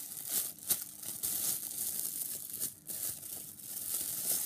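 Clear plastic bag crinkling and rustling in the hands as it is handled, in irregular crackles with a few sharper crackles.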